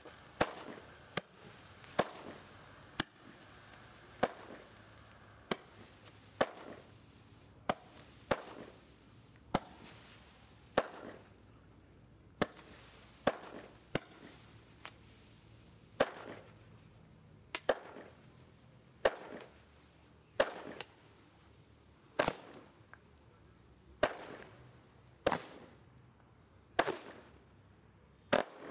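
Zeus Fireworks 'Kaleidoscope' low-noise 25 mm firework barrage cake firing its shots one after another: a steady series of sharp pops, roughly one every second or so, each with a short fading tail.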